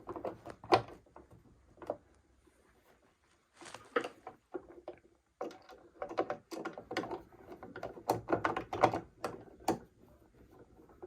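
Sewing machine cover being fitted back on: irregular clicks, taps and knocks of parts being handled, in clusters with a quiet gap about two seconds in.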